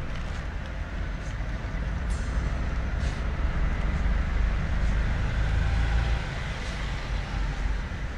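Steady low rumble of a vehicle driving on a wet road, heard from inside the cabin, with a few light ticks.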